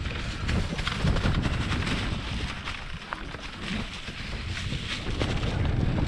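Mountain bike rolling down a leaf-covered dirt trail: wind rumbling on the microphone, with the tyres running over dry leaves and stones and the bike rattling in quick small clicks.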